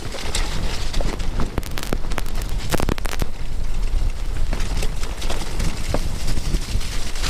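Mountain bike rattling and knocking as it rides down a rough, wet, stony track, its tyres running through mud and over stones, with wind rumbling on the camera microphone. A louder run of knocks comes about three seconds in.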